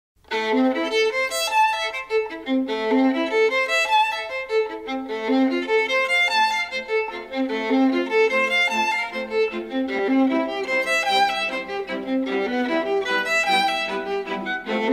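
Background music: a violin playing a melody of quickly changing notes, coming in about a third of a second in.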